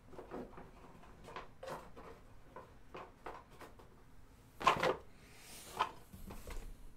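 Scattered light knocks and clatter of a box and supplies being handled, with a louder knock a little past halfway and another about a second later, between which comes a brief rustle.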